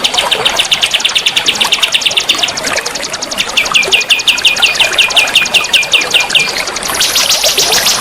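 A songbird singing rapid, machine-gun-like trills of repeated notes, the fast 'nembak' masteran song used to train cage birds, over a steady rush of flowing water. After a short break the trills turn into a run of sharp downward-hooked notes, and near the end into a higher, denser trill.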